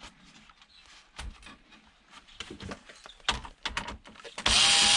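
Scattered clicks and knocks of plastic and metal parts being handled in a DVD player's casing, then, about 4.5 seconds in, a cordless drill-driver fitted with a long bit starts running steadily at a constant speed.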